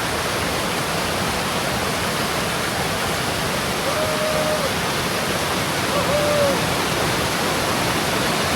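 Mountain stream rushing steadily in a loud, even roar of water. Two brief faint calls rise over it about four and six seconds in.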